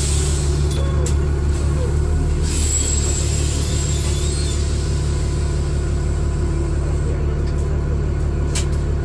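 Dennis Trident II double-decker bus engine running steadily, heard from inside the bus as a low drone, with a faint high whine and hiss coming in about two and a half seconds in. A sharp click near the end.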